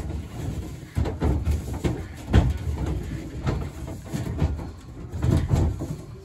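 Bulky scenery pieces being turned, shifted and set into place in a trailer: irregular knocks, thumps and scrapes, the loudest thump about two and a half seconds in.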